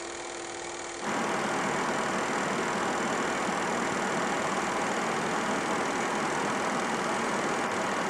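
Film projector running sound effect: a steady mechanical whir that gets louder about a second in.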